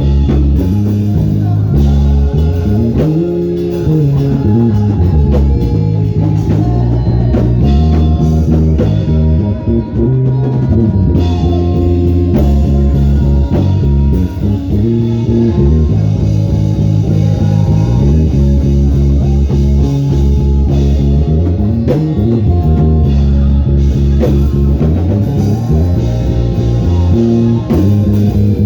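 Instrumental band music with guitars, a drum kit and a prominent bass line that slides up and down in pitch now and then.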